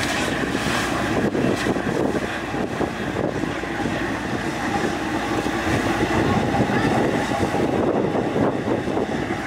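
Steady rumble and rushing noise of the fast ferry Majestic Kawanua II under way, its engines droning under the rush of water and wind.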